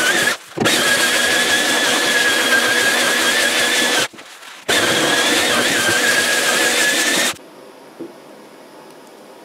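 Handheld belt sander running on an oak tabletop: steady grinding of the belt with a high whine over it, dropping out briefly twice. It cuts off abruptly about seven seconds in, leaving low room noise.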